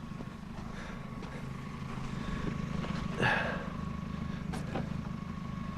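Car engine idling steadily, with a brief noise about three seconds in and a sharp click a little later.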